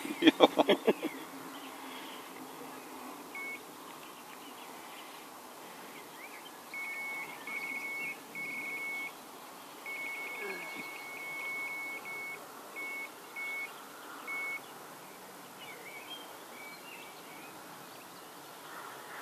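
Faint electronic beeping at one steady high pitch, coming and going in short beeps and longer runs, the longest about two seconds, from about three seconds in until about fifteen seconds in.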